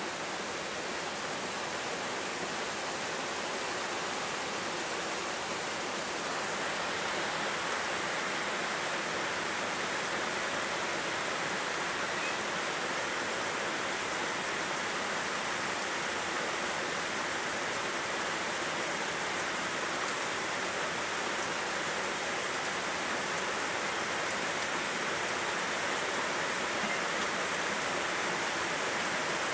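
Rain falling steadily: a continuous, even hiss with no breaks.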